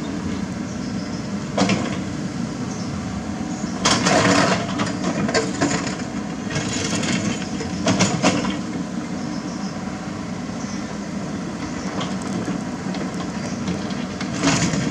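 Komatsu mini excavator's diesel engine running steadily while its bucket scrapes and digs through broken rock and soil, rocks clattering in several short bursts, the loudest about four seconds in and again around eight seconds.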